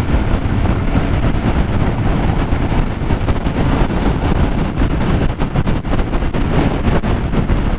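Strong crosswind buffeting the microphone on a moving motorcycle, a loud, rough, fluttering rush that covers the Yamaha XTZ Crosser's engine and road noise.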